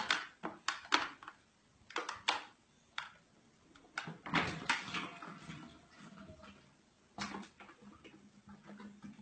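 Irregular sharp knocks and clatter, a few of them in the first three seconds, a longer clattering stretch about four to five seconds in, and one more knock about seven seconds in.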